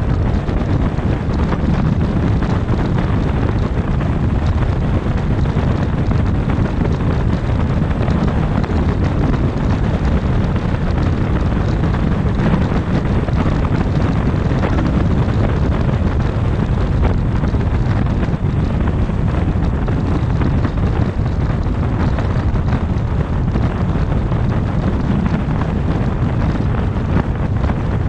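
Steady wind rushing over the microphone with the low rumble of tyres and road from a car travelling at highway speed, unchanging throughout.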